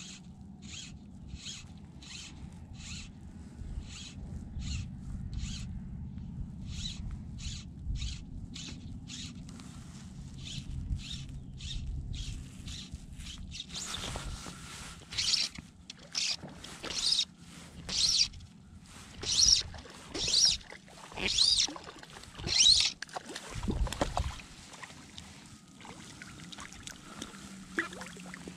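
Fly line being stripped in through the rod guides, a short zipping rasp about twice a second. From about 14 s in, with a trout hooked and the rod bent, the strips come louder and longer, about once a second, as the fish is pulled in by hand, with a low thump near the end.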